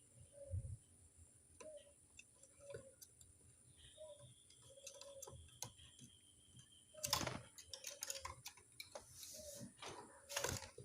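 A quiet pause between dove coos, holding faint scattered ticks and clicks. Two louder clusters of clicks come about seven and ten and a half seconds in.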